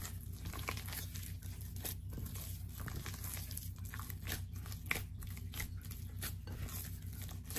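Sticky enriched bread dough being kneaded by hand in a glass bowl: irregular soft tearing and squishing as the dough is pulled apart and pressed, with butter and shortening being worked in. A steady low hum lies underneath.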